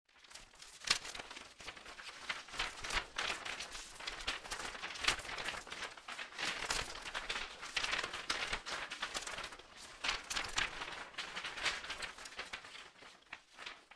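Crinkling, rustling noise full of irregular sharp crackles, with no tune or steady beat.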